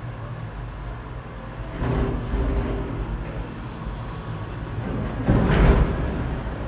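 Detachable gondola lift cabin coasting into the station on its overhead rail and tyre drive, with a steady low mechanical rumble that grows louder about two seconds in. A brief louder rattling rush comes about five seconds in as the cabin passes close.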